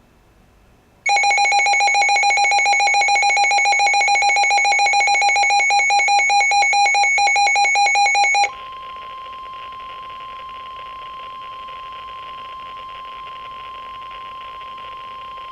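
Midland WR-100 weather radio sounding an alert: first a loud, rapidly pulsing electronic alarm beep for about seven seconds. It then gives way to the steady NOAA Weather Radio 1050 Hz warning alert tone, quieter, over broadcast hiss. This signals that a weather warning is about to be read.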